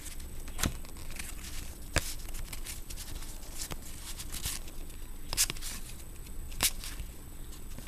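Basketball trading cards being handled and flipped through by hand: light rustling with a few sharp clicks and snaps of card stock.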